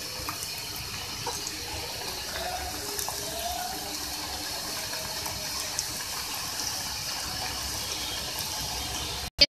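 Aloo puri frying in hot oil in a kadai, a steady sizzle as the puri is pressed down with a spoon. The sound cuts off abruptly just before the end.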